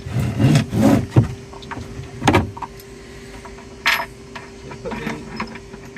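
A sheet-metal base plate being set down and shifted into place on a van floor: scraping and knocking in the first second, a heavier knock a little over two seconds in, a sharp metallic clank about four seconds in, then a few light clicks.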